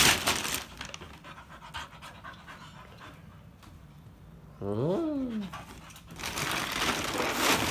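Black Labrador panting while a plastic food-sack liner is rustled, loudest right at the start and again from about six seconds on. About five seconds in comes a short cry that rises and then falls in pitch.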